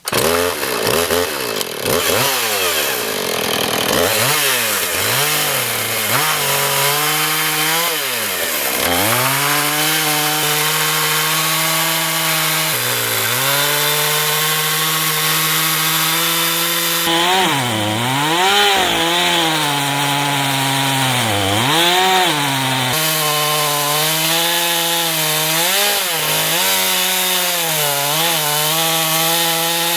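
Chainsaw running at high revs, ripping lengthwise through a black walnut log in a chainsaw mill cutting guide. The engine pitch sags again and again as it bogs under the cutting load, then climbs back.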